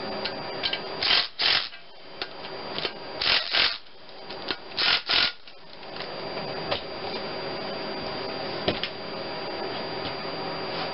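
Socket ratchet clicking in short rasping bursts, three pairs of back-strokes in the first five seconds, as exhaust manifold bolts are run down. After that come a few light metal clicks.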